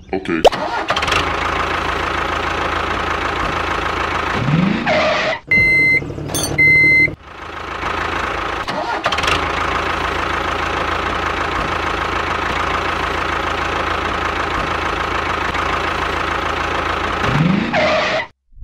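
Tractor engine running steadily. It revs up briefly about four and a half seconds in and again near the end, and two short high beeps sound between about five and a half and seven seconds in.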